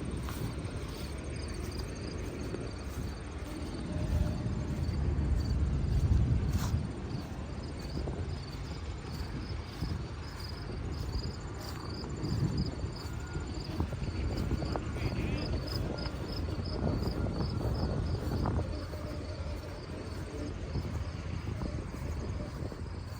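Insects chirping in a steady rhythm of about three pulses a second, over a low, uneven rumble that swells a few seconds in.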